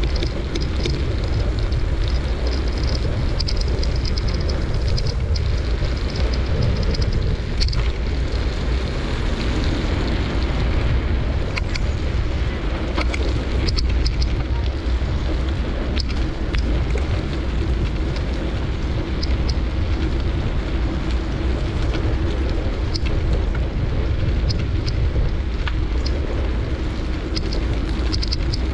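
Steady wind rumble on the microphone while riding along a wet street, with road noise and scattered small clicks and knocks.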